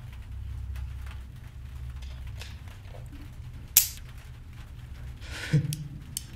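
A revolver gives a single sharp click about four seconds in, over a low steady hum. A sharp intake of breath follows about a second and a half later.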